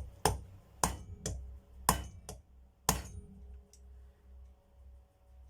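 Hammer striking a long 9 mm socket used as a drift to drive a bearing into a vacuum cleaner motor: seven sharp metallic taps, several in rough pairs, over the first three seconds, each with a short ring.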